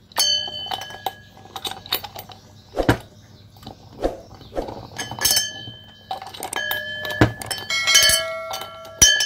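Metal paint cup of a gravity-feed spray gun knocking and clinking against the gun's fittings as it is handled and fitted on. Several knocks leave a short bell-like ring, and the rings crowd together near the end.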